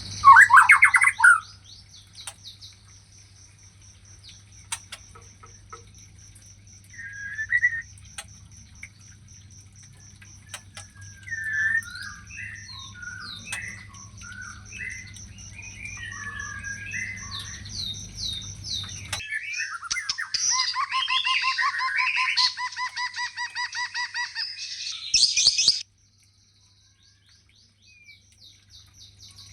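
White-rumped shama (long-tailed murai batu) singing a varied song of short whistled phrases and fast rattling trills, busiest about two-thirds of the way through, with a steady thin high-pitched tone running underneath.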